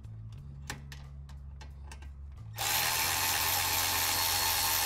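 A few light clicks, then a power tool runs steadily for about two seconds, backing out a 13 mm brake caliper bolt.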